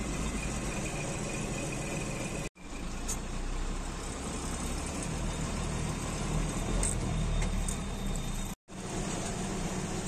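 Engine and road noise heard from inside a moving truck's cab: a steady low rumble. It cuts out twice for an instant, about two and a half and eight and a half seconds in.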